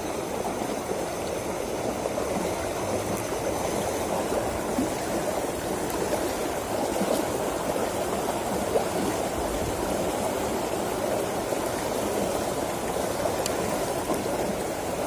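Water running steadily in a narrow irrigation ditch, rushing over small drops along the channel.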